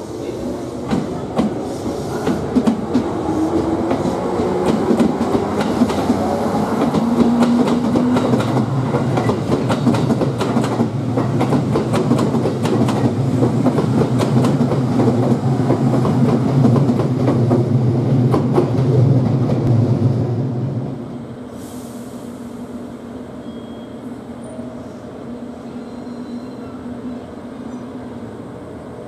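JR Kyushu 787 series limited express electric train running slowly past: rapid clicking of its wheels over rail joints over a rumble and a steady low hum, louder through the middle and dropping off sharply about 21 seconds in as the last car clears. A quieter steady rail rumble follows as a 783 series train comes in on the next track.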